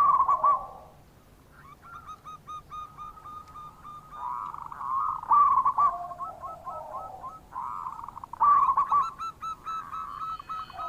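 Zebra dove (perkutut) calling: repeated phrases of quick short cooing notes around 1 kHz alternating with louder rolling coos, the song coming back every few seconds.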